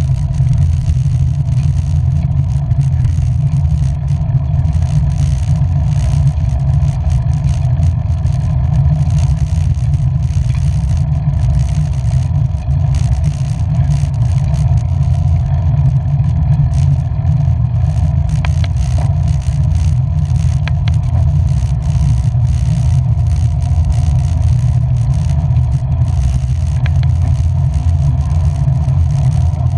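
Vehicle riding on a rainy road: steady low engine and road rumble, with a few light ticks about two-thirds of the way in.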